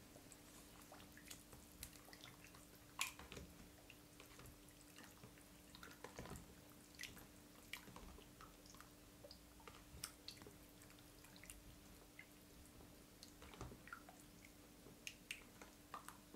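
Faint wet squelches and small clicks of a hand mixing raw chicken wings in buttermilk in a plastic tub, over a faint steady hum.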